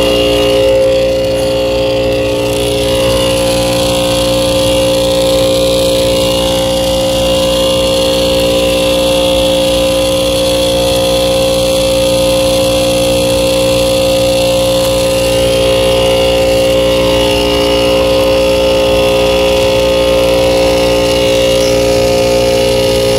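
Rooftop HVAC unit running with its compressor on, a loud steady hum of several fixed tones. The compressor sounds terrible, a rough, unhealthy running noise.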